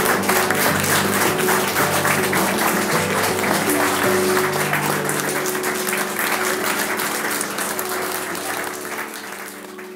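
A roomful of wedding guests applauding over background music. The applause and music fade out over the last couple of seconds.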